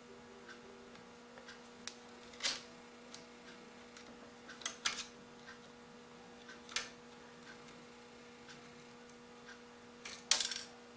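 Small screwdriver backing a screw out of a laptop screen frame: scattered light clicks and scrapes of metal on the screw head and plastic, a few louder ones about two and a half, five and seven seconds in and a sharper pair near the end, over a steady low hum.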